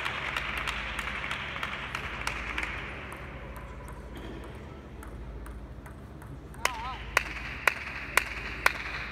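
Table tennis ball bounced five times, evenly about half a second apart, in readiness for a serve. Under it is the murmur of a busy sports hall with voices and light ball clicks, louder in the first few seconds.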